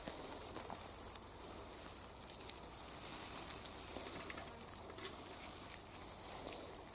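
Rustling and crackle of a collapsible mesh fish trap being opened and shaken out, with a light patter of small fish flapping against the netting and a few faint taps in the second half.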